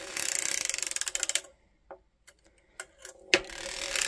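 Erlbacher Gearhart Speedster circular sock knitting machine being hand-cranked while decreasing a sock toe: rapid fine clicking from the cylinder needles. There are two runs of clicking, each about a second and a half long, with a pause of about two seconds between them.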